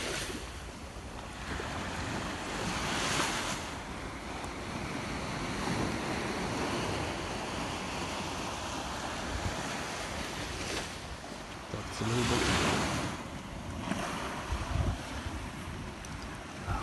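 Surf washing on a beach and wind on the microphone, swelling louder twice, about three seconds in and about twelve seconds in.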